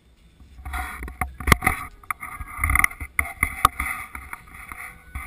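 Nylon fabric of a Coleman dome tent rustling and crinkling as it is handled, with several sharp knocks and taps mixed in. It starts under a second in and dies down near the end.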